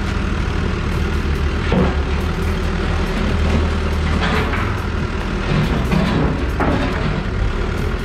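Caterpillar backhoe loader's diesel engine running steadily at close range while the machine lowers its front loader bucket, with a few brief louder noises over the hum.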